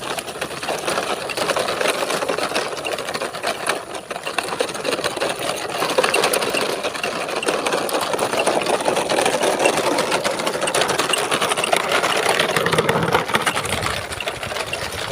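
A toy truck's small electric motor and gears whirring steadily as it drives, with a fine continuous rattle.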